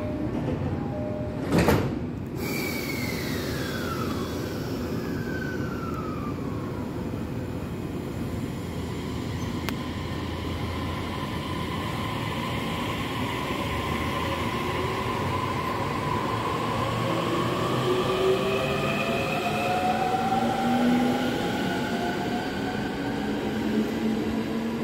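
Electric suburban train pulling out of a station: a short loud burst of noise about two seconds in, then the motor whine starts to sound with tones that first fall and then slowly rise in pitch as it gathers speed, over a steady rumble of wheels on rail.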